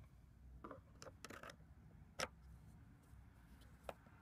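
Faint, sharp clicks and taps of a thin tool against the rear hatch strut's ball-stud mount, about five in all, with one louder click about halfway through.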